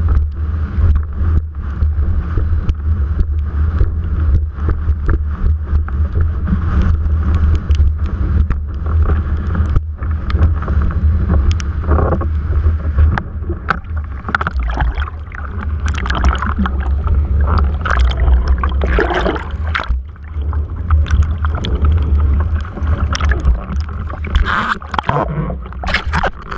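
Wind buffeting a mast-mounted GoPro on a windsurfer, a heavy steady low rumble, with water rushing and splashing against the board and sail. The splashing is busier in the second half.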